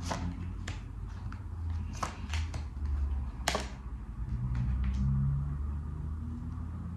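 Tarot cards being dealt one by one from the deck onto a tabletop, heard as a handful of sharp irregular clicks and taps, most of them in the first four seconds. A steady low rumble runs underneath.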